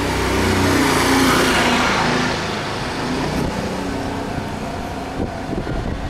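A motor vehicle passes close by on the street, its noise swelling to a peak about a second in and dying away over the next second or so, leaving steady street noise.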